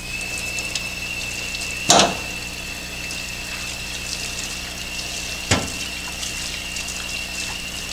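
Running water rinsing a freshly resurfaced brake rotor over a bucket, with a steady high-pitched tone in the flow. Two sharp knocks cut through it, the louder about two seconds in and another about five and a half seconds in.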